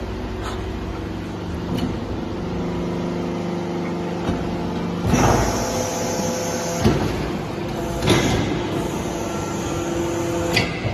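Hydraulic shisha charcoal cube press running, with the steady hum of its hydraulic power unit. Several louder rushing, clunking moments come from the press cycling, about five, seven and eight seconds in.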